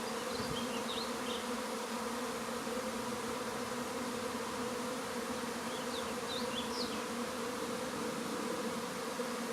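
Honey bee swarm buzzing, a steady, dense hum of thousands of wings, as the swarm streams into a bait hive. A few faint high chirps sound over it twice, about half a second in and again around six seconds in.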